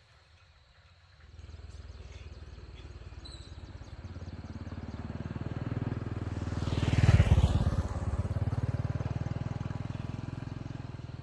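A small motorcycle engine running. It comes in sharply about a second in, grows louder to a peak around seven seconds in, then eases back and runs on steadily.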